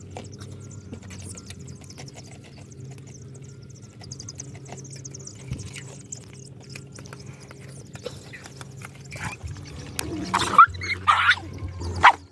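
Dogs lapping water from a plastic bucket and a metal basin, with faint high cheeping of chicks. Near the end come a few louder, short animal cries that rise and fall in pitch.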